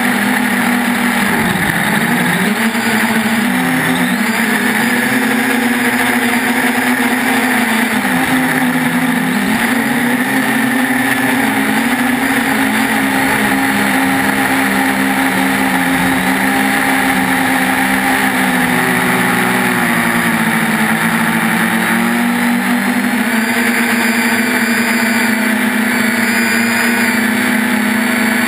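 3DR Iris+ quadcopter's electric motors and propellers buzzing steadily in flight, the pitch dipping and swinging back up several times as the motor speed changes.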